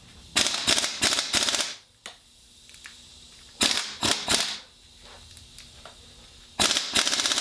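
Impact wrench rattling in three short bursts, hammering on a stuck, heated bolt on a Ford 351M engine to work it loose.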